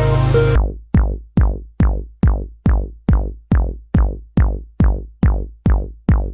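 Electronic music: a held synth chord cuts off about half a second in, then a deep drum-machine kick beats steadily, a little over two hits a second, each hit dropping in pitch.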